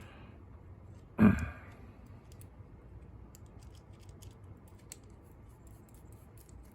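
Small tools and metal pick parts being fitted into a leather belt holder, giving a string of faint, light clicks and taps. About a second in there is one short louder breathy sound, like a sigh.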